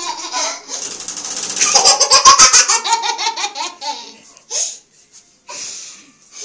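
Toddler laughing: a run of quick, pulsing belly laughs, loudest about two seconds in, then a couple of short giggles.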